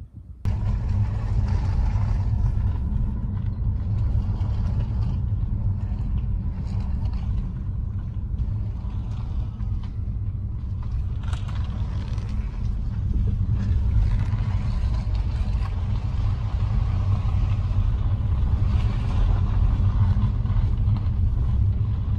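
A car driving, with a steady low rumble of engine and road noise that starts abruptly about half a second in.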